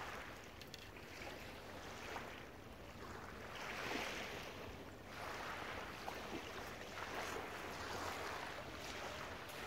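Small waves lapping and washing over a shingle beach, swelling and ebbing every few seconds.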